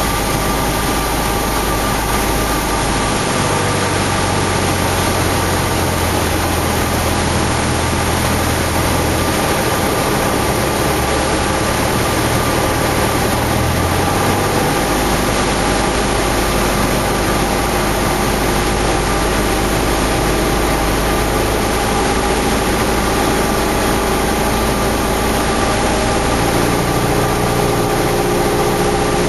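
Cessna 172's piston engine and propeller running steadily, heard inside the cabin during a landing approach: a constant loud drone over a wide rushing hiss. The low hum shifts a little between about three and fifteen seconds in.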